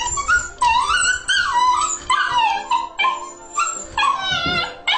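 Siberian huskies vocalizing in a string of whining, howl-like calls that slide up and down in pitch, one after another with short breaks between them.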